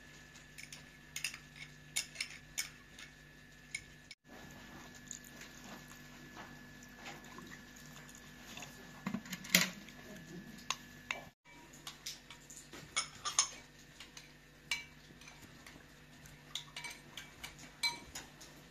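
Metal spoon clinking and scraping against a ceramic bowl while stirring tomato paste into liquid: a string of light, irregular clinks, the loudest a little past the middle, over a faint steady hum.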